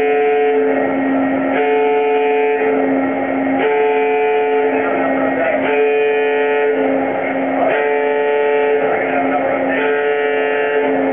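Tunnel boring machine's warning alarm sounding without pause while the segment erector's hydraulic arms lift a concrete lining segment into place, the signal for workers to stay clear. The alarm is a two-tone pattern that switches about once a second over a steady lower tone.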